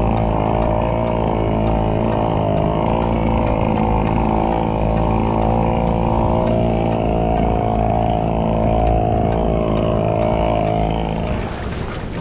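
Small engine running steadily at constant speed, then dropping away near the end.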